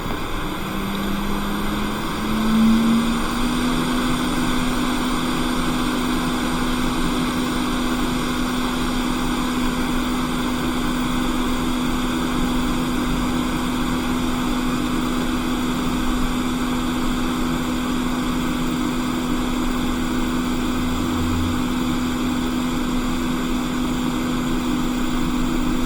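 Hot air rework station blower running steadily: an even rush of air with a constant hum that rises slightly in pitch about two seconds in.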